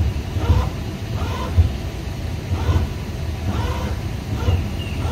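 Low, uneven rumble of wind buffeting the microphone, with faint distant voices coming and going over it.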